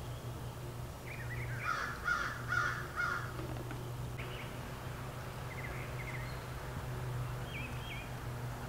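A crow cawing, about four harsh caws in quick succession starting about a second in. A few short bird chirps follow later, over a steady low hum.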